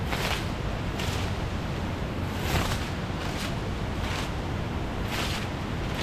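A leafy branch swept across a bamboo-slat platform, making a short brushing swish about once a second, over the steady rush of a river.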